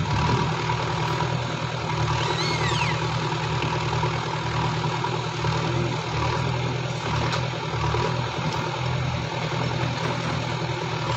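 Engine running steadily at idle, a low even hum.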